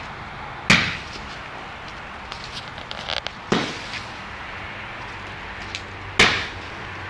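Fireworks going off: three loud bangs, each with a short echoing tail, a few seconds apart, with a brief scatter of small pops and crackles between the first two.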